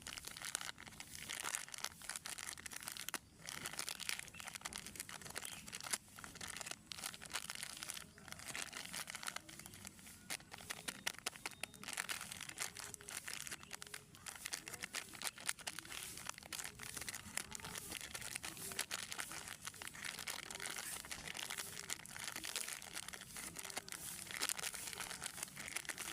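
Plastic snack wrappers being handled, crinkling and crackling continuously with many sharp little crackles.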